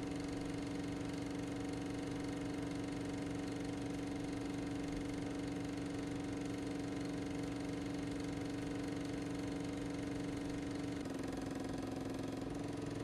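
Film projector running: a steady mechanical whir and hum with a fast flutter. The pitch dips slightly about eleven seconds in and recovers near the end.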